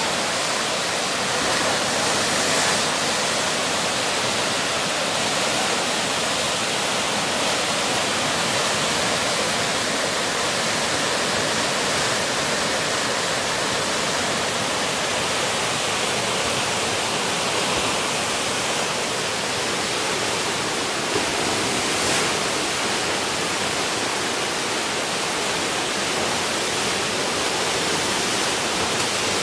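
Whitewater river rapids rushing steadily at a standing wave, a continuous even rush of water.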